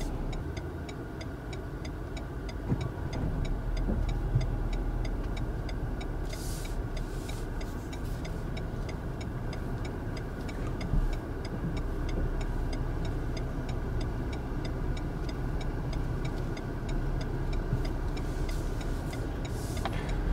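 Steady engine and road noise heard from inside a moving car's cabin, with a faint, regular ticking throughout and a few light knocks.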